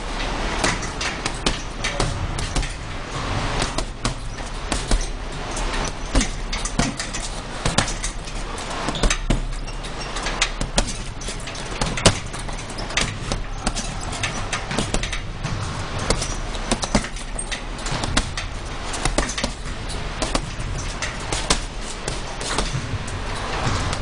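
Boxing gloves thudding into a hanging UFC heavy bag in an irregular run of punches, several a second at times, over a steady low hum.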